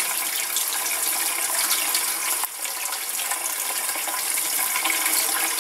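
Kitchen faucet running steadily into a stainless steel sink as a cooked chicken breast is rinsed by hand under the stream. The sound briefly drops about halfway through.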